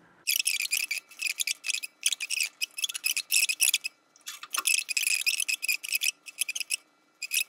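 Computer keyboard typing: runs of quick keystroke clicks in several bursts, with a longer pause about four seconds in.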